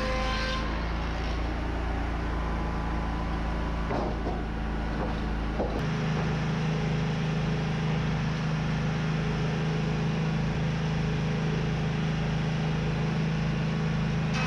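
Steady engine drone of Wood-Mizer sawmill machinery. About six seconds in, after a short click, it changes abruptly to a different steady drone: the Wood-Mizer edger running while a board is worked on its roller table.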